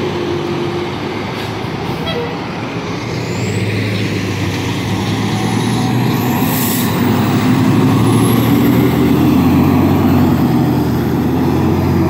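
Fire engine's diesel engine running loud as the truck drives past, its rumble swelling about halfway through. A short air-brake hiss comes about six or seven seconds in.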